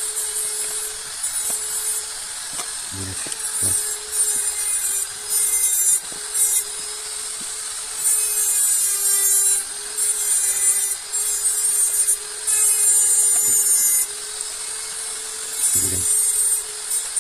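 Harsh scraping or rasping in irregular stretches of one to two seconds, over a steady hum.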